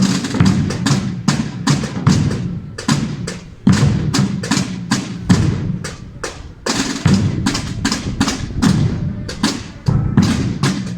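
Holy Week procession snare drums and bass drums (tambores y bombos) playing together in a fast, dense rhythm, with a loud accent starting a new phrase about every three seconds.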